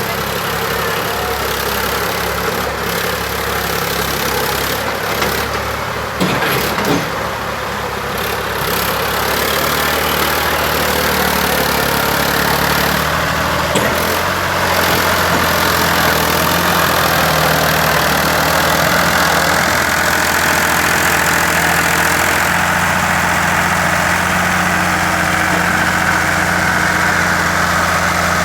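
Heavy machine's diesel engine running steadily, with a couple of short knocks about six seconds and fourteen seconds in.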